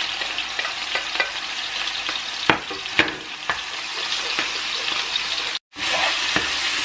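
Chicken pieces and freshly added ground chili-shallot paste sizzling in a nonstick frying pan, with a spatula scraping and knocking against the pan a few times. The sound cuts out for a moment near the end, then the sizzle comes back louder.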